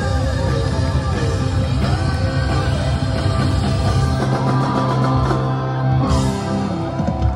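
Live rock band playing loudly, heard from the audience, with a cymbal crash about six seconds in and a last loud hit just before the end as the song finishes.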